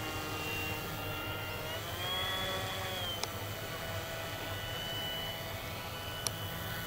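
Scratch-built RC park jet's electric motor whining steadily in flight, its pitch rising about two seconds in and dropping back about a second later as the motor speeds up and slows. Two short sharp clicks, about three and six seconds in.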